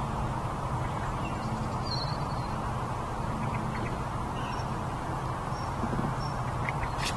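Outdoor pond-side ambience: a steady low rumble with a few faint, short, high bird chirps.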